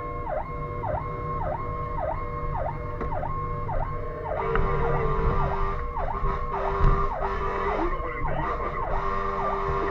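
Fire engine's electronic siren sounding in a fast repeating dip-and-return pattern, about two cycles a second, over engine and road rumble. A steady lower tone joins about four seconds in.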